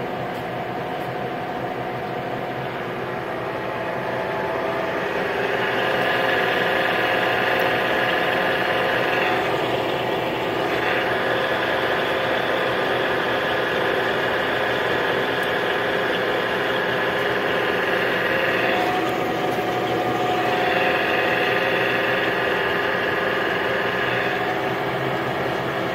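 Acer Dynamic 1440E gap bed lathe running under power, its gears whining steadily. A higher whine joins about five seconds in and drops out briefly twice.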